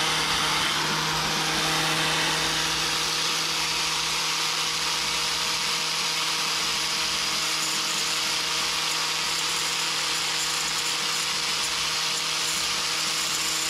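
Angle grinder with a flap wheel running steadily as it grinds a rounded corner into a pane of window glass kept wet with water.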